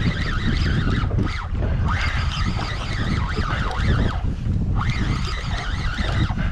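Wind buffeting the microphone on an open fishing boat at sea, a steady low rumble.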